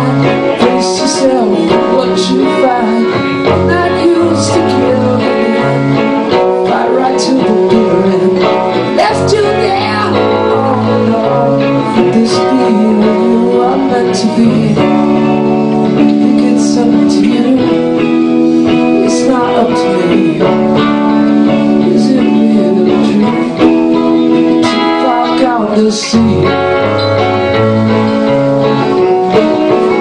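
Live rock band playing at full volume: distorted electric guitars, bass and keyboard over a drum kit with cymbal crashes, with a sung vocal.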